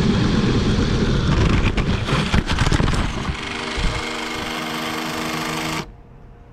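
A loud rushing noise with a few sharp plastic knocks about two seconds in, as the LEGO City Express Passenger Train runs into the camera on the track. Then a steady electric motor hum from the train pressed against the camera, cut off suddenly near the end.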